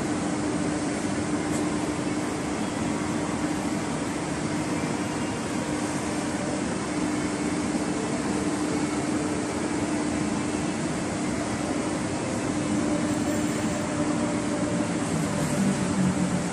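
Small belt conveyor running, giving a steady mechanical hum with a steady low tone. Near the end a second, lower tone joins and it gets a little louder.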